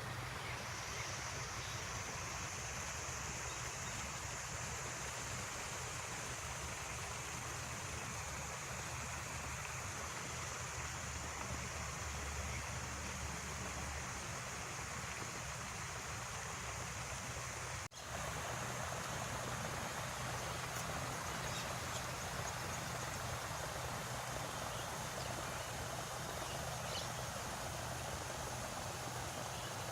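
Steady rushing of running water, like a stream, with a thin, steady high-pitched whine above it. The sound cuts out for an instant about halfway through.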